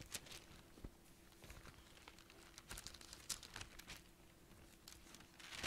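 Thin Bible pages being leafed through by hand: faint, scattered rustles and crinkles, with a louder swish near the end.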